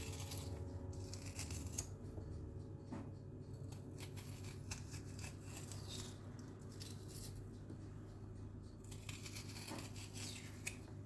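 Faint kitchen handling sounds: scattered light clicks and rustling over a steady low hum.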